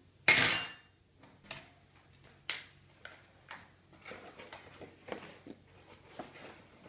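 Light clicks and knocks of a glass Chemex coffee maker and coffee-making things being handled and set down on a table, every second or so, with one louder, brief noise about half a second in.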